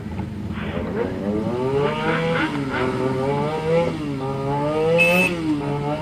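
Several motorcycle engines running together, idling with throttle blips so that the pitch rises and falls repeatedly as the group moves off. A short horn beep comes about five seconds in.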